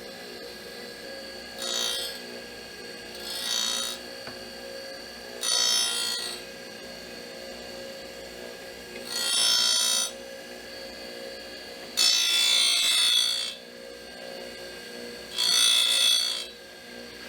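Tool and cutter grinder spindle running with a steady hum while the abrasive wheel grinds the steel bedknife rail of a reel mower in six short passes, each heard as a brief loud hiss of wheel on metal.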